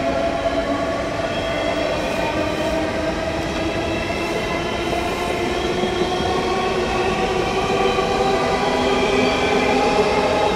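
SBB ICN (RABDe 500) tilting electric train running past at speed: a steady rumble of wheels on rails with several steady whining tones from its electric drive.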